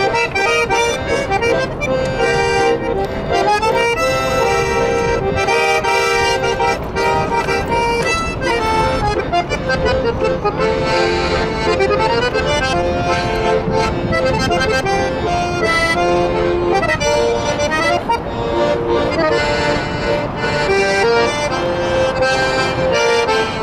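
Two piano accordions playing a tune together, with held reed notes and a melody that moves continuously throughout.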